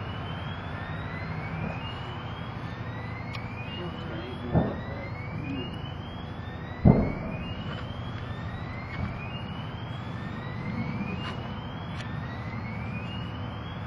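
Two heavy booms of munitions going off at a burning ammunition dump, about four and a half and seven seconds in, the second louder, over a steady low rumble. A rising whoop tone repeats about once a second throughout.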